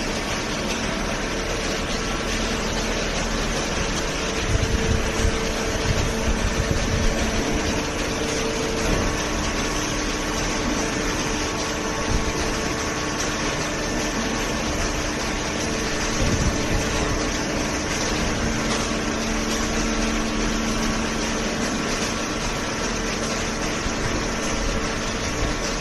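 Hydraulic baler running: a steady machine noise with an even hum from the hydraulic pump motor, and a few low knocks about four to seven seconds in.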